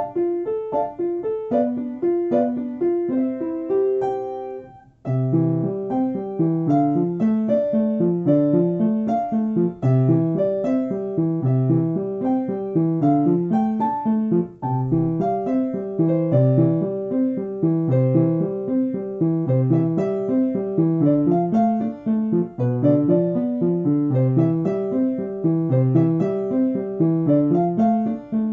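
Background piano music playing a steady run of notes. It breaks off briefly about five seconds in, then comes back fuller with lower notes added.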